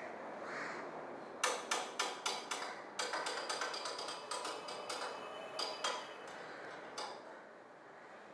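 Hammer tapping on metal: a run of sharp, quick strikes, about three to five a second and unevenly spaced, starting about a second and a half in and stopping about seven seconds in.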